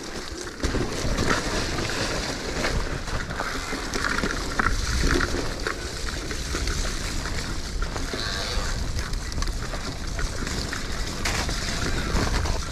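Electric mountain bike descending a steep, muddy trail: tyres churning and splashing through slop with scattered knocks from the bike, and wind buffeting the camera's microphone.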